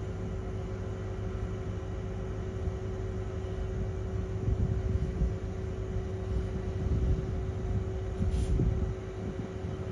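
A ScotRail Class 156 diesel multiple unit approaching and drawing into the station, its underfloor diesel engines rumbling louder from about four seconds in, over a steady hum. A brief high click sounds near the end.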